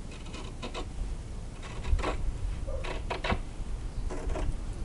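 Scissors cutting heavy cotton duck fabric: a series of short, irregular snips and the stiff cloth rustling as the blades close along the cut.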